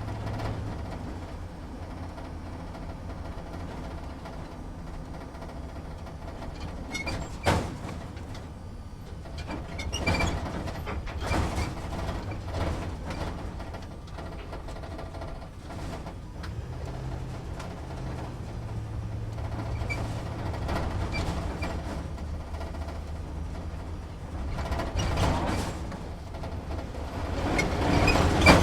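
Inside a truck's driver's cabin while it drives slowly: the engine drones low and steady, and the shaking cab rattles and knocks. A sharp bang comes about seven seconds in, with bursts of rattling around ten seconds and again near the end.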